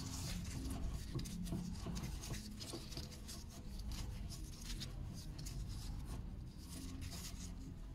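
Steering tie rod end being turned by hand onto the threaded tie rod of a Renault Espace IV: irregular scratchy rubbing and small clicks of metal thread and gloved hands, over a low steady hum.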